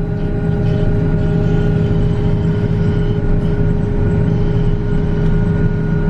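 Grimme Varitron 220 self-propelled potato harvester running, heard from inside its cab: a steady low engine drone with a constant whine on top as the elevator carries potatoes up into the hopper.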